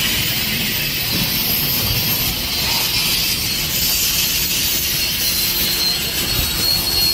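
An Amtrak passenger train's coaches and F40 cab car roll past at low speed, with a steady rumble and hiss from the wheels on the rails. A thin, high-pitched wheel squeal comes in about halfway through and grows louder toward the end.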